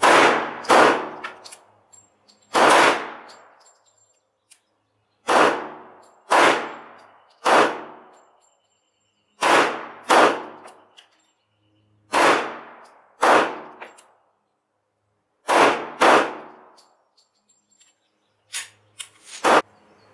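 Semi-automatic pistol fired at a target, about a dozen single shots, often two in quick succession about a second apart with pauses between, each report followed by a ringing echo. A few fainter bangs come just before the last loud shot near the end.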